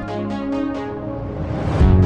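Electronic background music: the steady beat thins out while a rising noise sweep builds, and a heavy bass beat drops in near the end.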